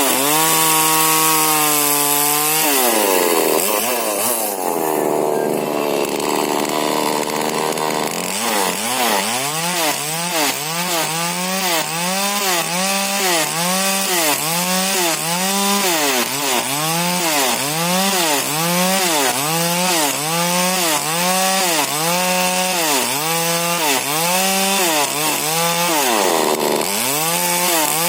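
Modified 40cc Husqvarna two-stroke chainsaw with a modified exhaust, held at high revs at first. It then runs for a few seconds at a steady, lower pitch with a rough noise over it. After that it is revved up and down over and over, about once every second and a bit.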